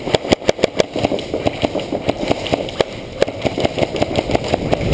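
Rapid airsoft gunfire: electric guns firing bursts of sharp clicking shots, densest in the first second or so, then more scattered.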